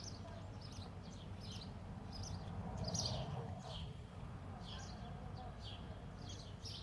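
Small birds chirping, short high chirps repeating about one or two a second. A cat answers with a lower chirping call of its own, loudest about three seconds in.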